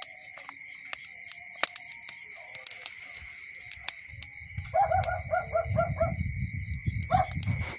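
Wood campfire crackling with sharp, irregular pops, over the steady high chirring of crickets. About five seconds in, a quick run of about six short pitched calls is heard over a low rumble.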